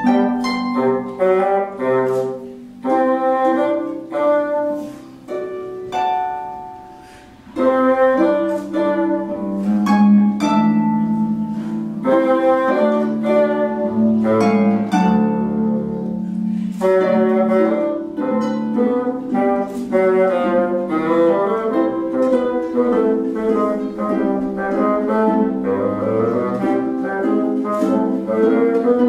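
Instrumental music with a quick run of short pitched notes, dipping quieter briefly about six seconds in and then returning full.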